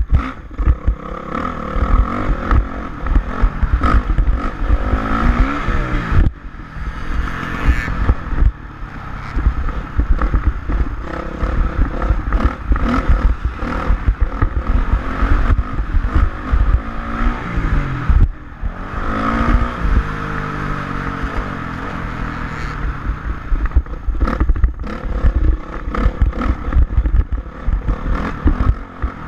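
Dirt bike engine revving up and down as it rides, with its pitch sweeping several times, over heavy wind buffeting and clatter on the microphone.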